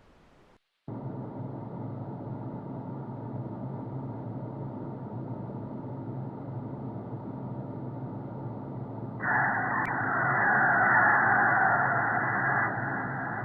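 A steady, muffled static-like drone with a low hum, starting under a second in after a brief drop-out. About nine seconds in a louder rushing layer joins with a single click, and it eases off after about three and a half seconds.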